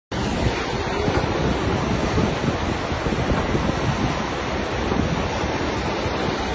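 Fast, flood-swollen mountain stream rushing over rocks, a steady churning water noise, with wind buffeting the microphone.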